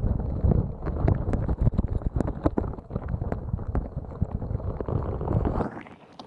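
A slimy squeeze toy pressed and worked over an ear-shaped ASMR microphone: muffled rumbling with many small wet crackles and clicks, stopping suddenly near the end.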